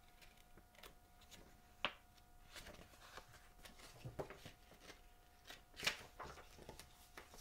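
Pages of a picture book being turned and handled: faint paper rustles and soft taps, the louder ones about two, four and six seconds in.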